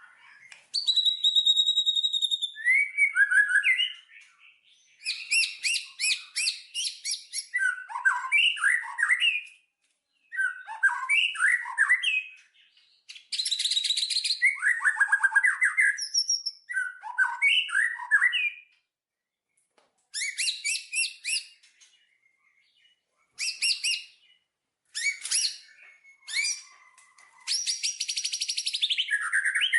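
Songbird singing in varied phrases of rapid trills and whistled notes, with short pauses between phrases.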